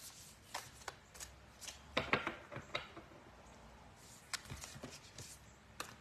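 Oracle card deck being shuffled and handled: scattered soft taps and flicks of the cards, the loudest about two seconds in.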